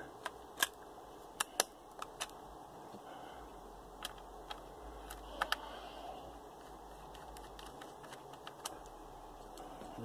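Scattered light clicks and taps of a laptop's plastic memory-bay cover being fitted back on and its screw turned with a Phillips screwdriver, several close together in the first two seconds and a few more later.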